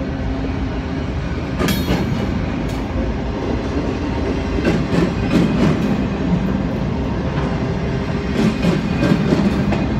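Double-stack intermodal well cars rolling past: steady noise of steel wheels on rail, broken by sharp clanks and clicks. The loudest clank comes about two seconds in, and more come in clusters in the second half.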